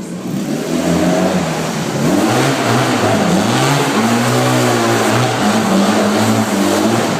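A 250 cc vehicle engine revving up and down several times, its pitch rising and falling, with a short steady hold partway through.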